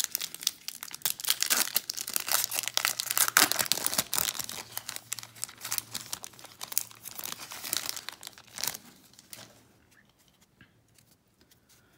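Plastic wrapper of a Topps baseball card pack crinkling and tearing as it is ripped open and the cards are slid out. The crinkling stops about nine seconds in.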